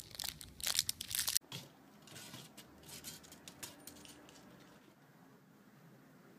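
Plastic candy wrapper crinkling as a cat bites at it: a quick run of sharp crackles that cuts off abruptly about a second and a half in. After that there is only faint room noise.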